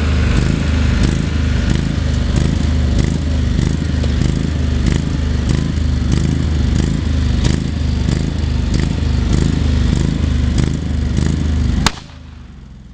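Lawn mower engine running steadily, with repeated clicks and clatter over the drone. It cuts off abruptly with a sharp click near the end, leaving a much quieter background.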